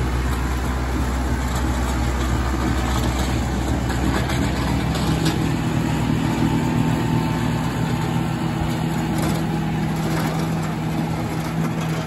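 Kubota M6040 tractor's diesel engine running steadily under load while driving a PTO-powered Bush Hog snowblower, with the rush of snow being thrown.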